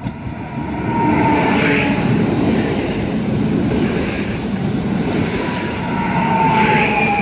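Koleje Śląskie EN76 (PESA Elf) electric multiple unit passing close by, its wheels rumbling on the rails. A thin electric whine slides down in pitch about a second in and again near the end.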